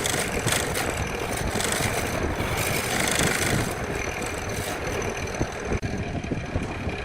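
Wood lathe running with a turning tool cutting the spinning wood, a steady scraping hiss over the motor's hum; about six seconds in the high scraping noise thins out.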